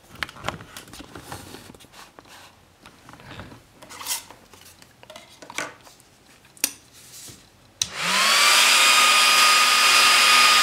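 Scattered handling clicks and rustles, then about eight seconds in a click as a small electric motor switches on. It spins up within a moment to a steady loud whirr with a high whine over it, as the laser is powered on.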